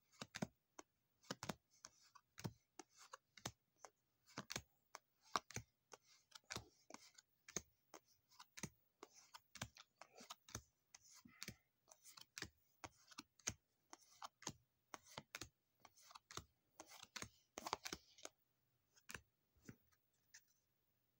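Faint, irregular clicks and soft scrapes of board-game cards being flipped one at a time through a hand-held stack, a few a second.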